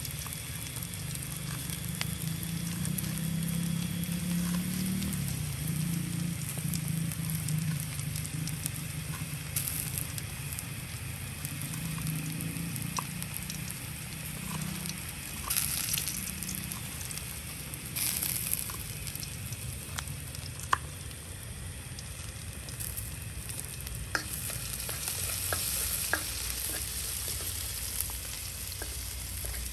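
Sliced shallots sizzling in oil in a steel wok on a portable gas stove, a steady frying hiss, with a low hum that fades out about halfway through. Scattered sharp clicks of a knife on a wooden cutting board while chilies are chopped, then a spoon stirring in the wok near the end.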